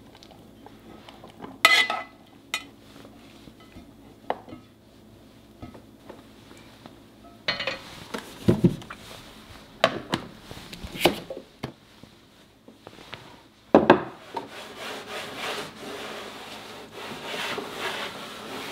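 A cooking utensil knocks against a pot a few sharp times, then scrapes and stirs steadily through the peanuts being braised for the last few seconds.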